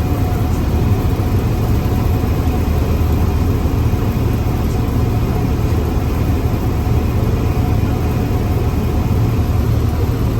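Steady drone of a 1976 Cessna 172M's 180-horsepower carbureted engine and propeller, running at an even speed with a deep hum underneath.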